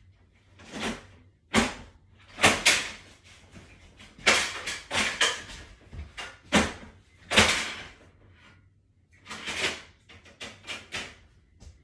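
Handling noises from clearing a paper jam in an Oki 8432WT printer: about a dozen short scraping, rustling sounds, unevenly spaced, as paper is pulled and parts of the printer are moved.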